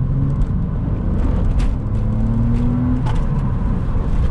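Porsche 986 Boxster S's flat-six engine and road noise heard from inside the cabin while driving. It is a steady low rumble, with the engine note rising for a second or two in the middle.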